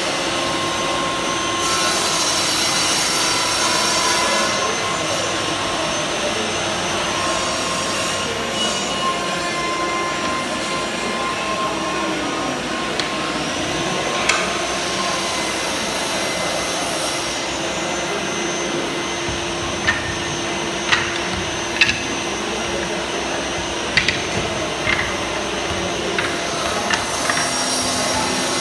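Steady whir of dust extractors and power saws running at the parquet layers' workstations. Sharp knocks and taps stand out over it, a few in the second half.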